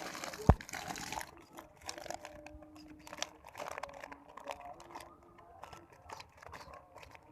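Water pouring and splashing for about the first second, with one sharp knock about half a second in, then scattered small clicks and crinkling.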